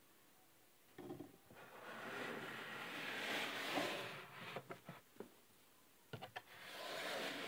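Handling noise: rubbing and scuffing against plastic, in two stretches with a few short clicks and knocks between them.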